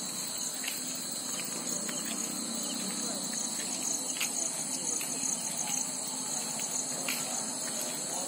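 Crickets and other night insects trilling in a steady, high-pitched chorus, over a faint low background murmur.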